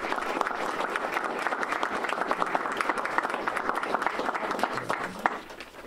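Audience applauding with many overlapping hand claps, dying down about five seconds in.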